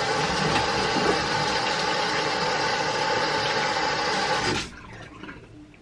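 Bathroom tap running into the sink, a steady rush of water that is turned off suddenly about four and a half seconds in.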